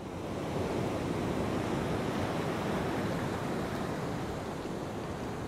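Sea surf washing ashore: a steady rushing of waves that swells in over the first half second and holds without any clear breaks.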